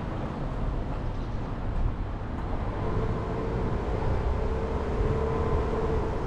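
Jeep Renegade driving slowly, with a steady low rumble of engine and tyres on the road. A faint whine comes in about halfway through.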